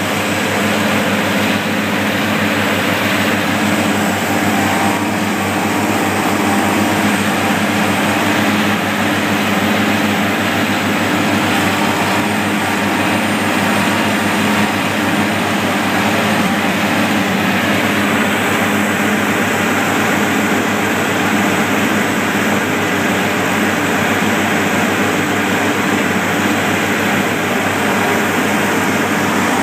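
Asphalt paver's diesel engine running steadily under load, heard up close from on the machine.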